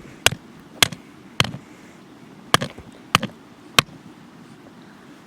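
Six sharp single blows, like a tool striking something hard, about half a second apart with a short pause midway.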